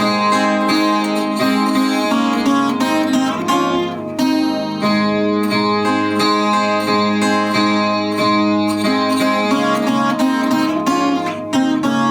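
Chilean guitarrón, the 25-string guitar of Chilean folk song, played solo: a plucked melody over strings that keep ringing underneath.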